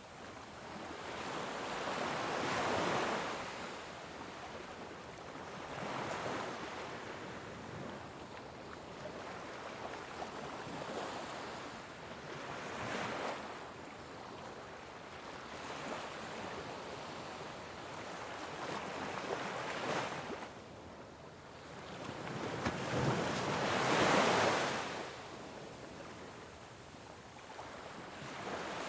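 Ocean waves washing ashore, rising and falling in slow, irregular surges every few seconds; the biggest wave comes about 24 seconds in.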